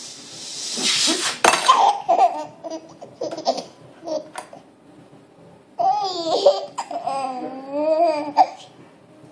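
Baby laughing in short bursts, then long wavering peals of laughter near the end, with a sharp click about a second and a half in.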